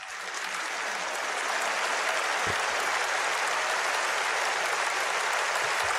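Congregation applauding steadily, a dense clapping that swells up over the first second and holds.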